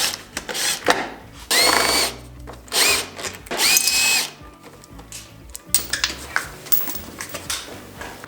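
A cordless power drill or driver, used to take fasteners off the dirt bike, whirs in short bursts. Its whine climbs in pitch and then holds at each trigger pull, three times in the first four seconds. Lighter clicks and knocks of parts being handled follow.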